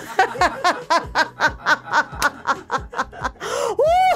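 Hearty laughter-yoga laughing in rapid 'ha-ha' pulses, about five a second, with a long rising-and-falling whoop near the end.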